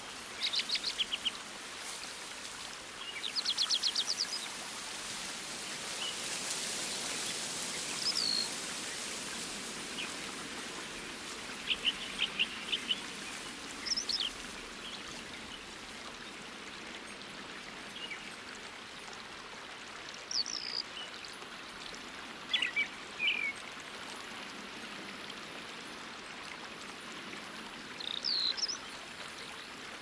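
Small birds giving short chirps and quick trills every few seconds over a steady rush of running water, like a stream.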